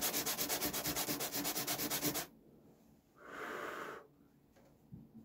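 Fast, even back-and-forth sanding of filler over two filled holes on a model railway layout, about nine strokes a second, stopping abruptly about two seconds in. A single shorter hiss follows about a second later.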